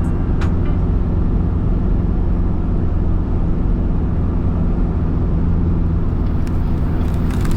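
A moving vehicle's engine and road noise, a steady low rumble with no change in speed.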